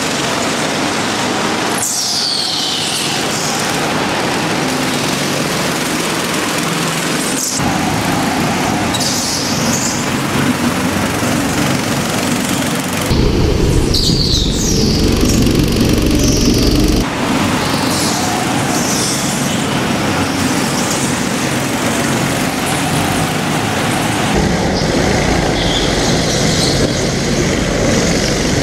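Go-kart engines running and revving as the karts race, with repeated high squeals from the tyres sliding through corners on a polished floor. The engine sound changes abruptly several times.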